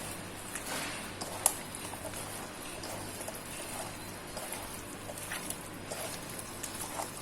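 Hands mixing raw chicken pieces into chopped onion, tomato, spice powders and coconut oil in a bowl: soft wet squelching with small clicks, and one sharper knock about a second and a half in.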